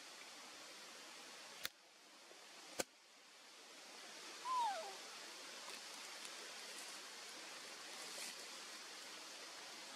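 Steady outdoor hiss of forest ambience, broken by two sharp clicks in the first three seconds. About four and a half seconds in comes one short falling animal call, the loudest sound here.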